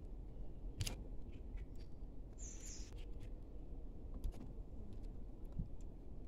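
Small handling clicks as fingers work a Bluetooth speaker's circuit board and its ribbon-cable connector, over a low steady rumble. A brief high chirp sounds about two and a half seconds in.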